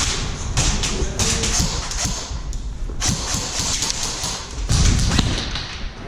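Irregular close thumps and taps with a rustling hiss, the movement and handling noise of an airsoft player and their gear.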